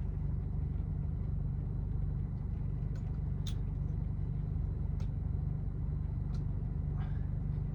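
Van engine idling steadily, with a few short sharp clicks as male and female solar cable connectors snap together.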